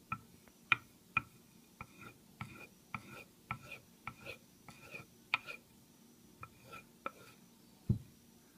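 A high-carbon steel knife blade being stroked back and forth on a leather paddle strop: a string of irregular short ticks and taps, each with a brief metallic ring, as the blade flips and touches down on the leather. Near the end a single louder, duller thump.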